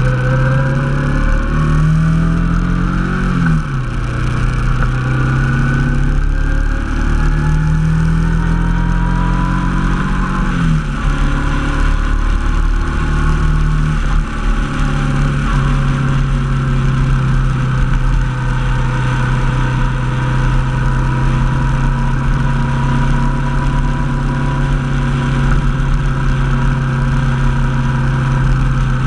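Honda NT700V Deauville's V-twin engine pulling under acceleration, its pitch climbing and then dropping sharply twice as it shifts up, about three seconds in and again near eleven seconds. It then holds a steady note at cruising speed, with wind and road noise over it.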